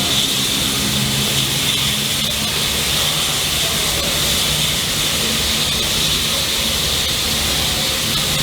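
Railway locomotive standing at a platform: a steady hiss over a low, wavering engine hum.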